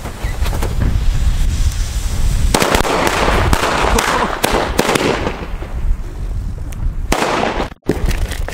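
Fireworks going off: a loud rush of hissing and crackling, with many sharp pops, starts about two and a half seconds in and dies away over a few seconds. A shorter burst follows near the end.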